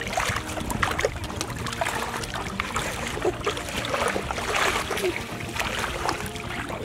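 Bare feet wading and kicking through shallow water in a flooded grassy field, with irregular splashing and sloshing.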